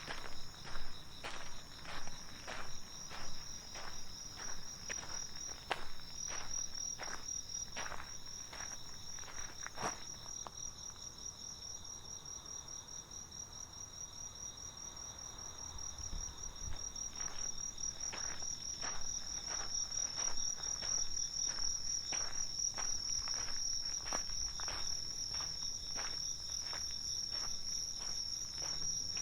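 Steady, high-pitched chirring chorus of night insects, with a person's footsteps at an even walking pace, about two steps a second; the steps fade out for several seconds in the middle, then resume.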